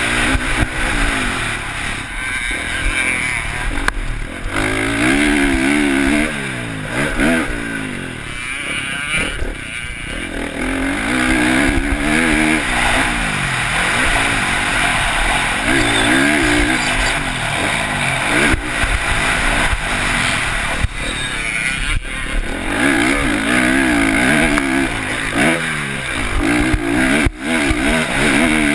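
Dirt bike engine revving up and dropping back over and over as it is ridden around a motocross track, with wind rush on the helmet-mounted microphone.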